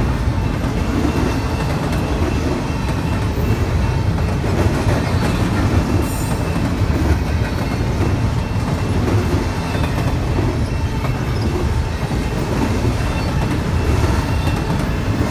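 A BNSF double-stack intermodal train of container-loaded well cars rolling past close by: a steady, loud rumble of steel wheels on the rails.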